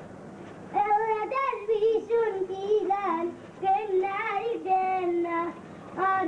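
A child singing a tune without accompaniment, in phrases of held notes, after a brief pause near the start.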